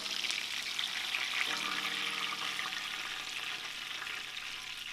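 Whole tilapia frying in shallow hot oil in a pan: a steady, dense sizzle of the oil.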